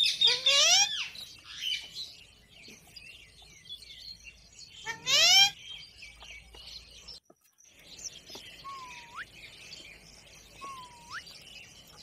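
Rose-ringed parakeets calling: loud, harsh screeches rising in pitch about half a second in and again about five seconds in, with softer chirping between. Two short whistles that dip and then swoop upward come later.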